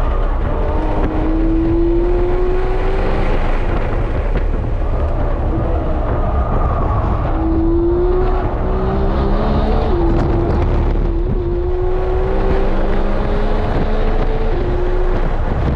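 Porsche 911 GT3's 4.0-litre naturally aspirated flat-six at full throttle, heard from inside the cabin. Its pitch climbs hard and drops back sharply at each upshift, several times, over steady road and wind noise.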